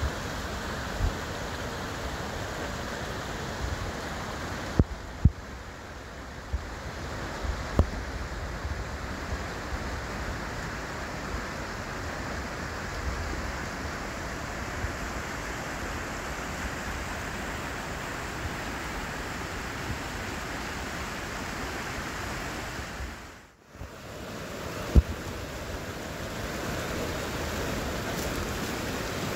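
Steady rushing of a shallow mountain stream running over stones, with a few sharp knocks. The sound dips away briefly about three-quarters of the way through and comes back a little louder.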